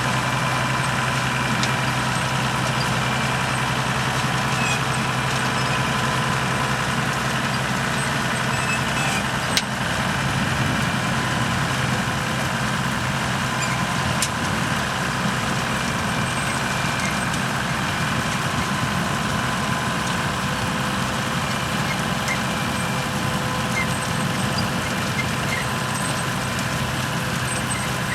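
Heavy farm machinery running steadily, with a constant engine hum and mechanical whine from potato harvesting equipment. A single sharp click about ten seconds in.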